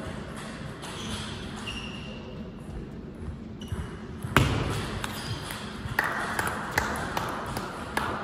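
Table tennis rally: the plastic ball clicking sharply off the bats and the table in quick succession, the loudest hit about four seconds in.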